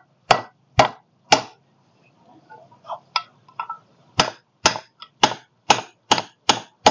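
Hammer tapping a 6301 ball bearing into its seat in the fan hub: sharp metal knocks, three spaced taps, a few faint clicks, then a quicker run of about seven taps, two or three a second.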